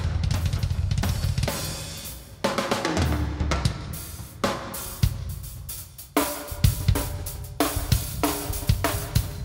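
Acoustic drum kit played fast: rapid bass drum strokes under snare and cymbals for the first couple of seconds, then separate strikes on ringing toms and crashes on cymbals.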